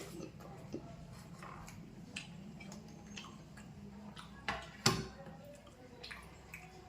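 A person eating: scattered wet mouth clicks and smacks of chewing, with a sharper, louder knock about five seconds in. A faint steady hum runs underneath.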